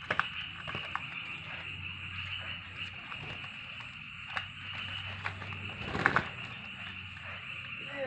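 A small bird bathing in a plastic basin of water: short splashes and flicks of water, a few near the start and about four seconds in, the loudest pair about six seconds in. Under them runs a steady high-pitched background chorus.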